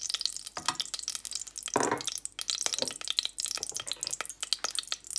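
Melted butter sizzling and crackling in a stainless steel saucepan, many small irregular pops, with a brief louder sound about two seconds in.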